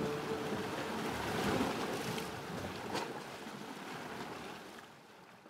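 River ambience: a steady wash of water and wind noise with a single knock about three seconds in, fading away near the end.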